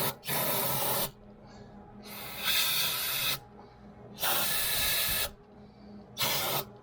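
Four short sprays of hissing, each about a second long and the last one shorter, with pauses between them.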